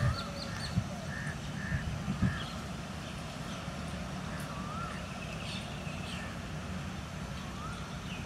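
Several birds calling: short repeated chirps and a recurring rising-and-falling whistled note every couple of seconds, over a steady low rumble. A few soft thumps come in the first two seconds.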